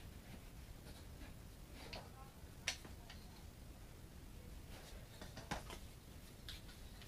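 Faint, scattered taps and clicks of shim wedges being pushed into the gap behind a door jamb. One sharper click comes about two and a half seconds in.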